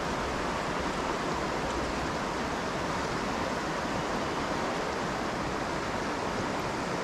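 River water flowing steadily over stones: an even, unbroken rushing hiss of current.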